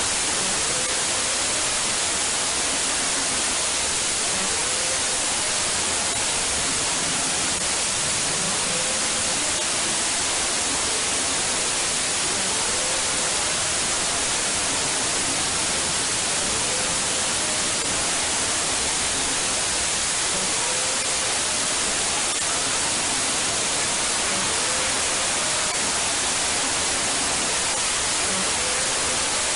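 Loud, steady white-noise static hiss that starts abruptly and does not change, with faint short wavering tones buried beneath it.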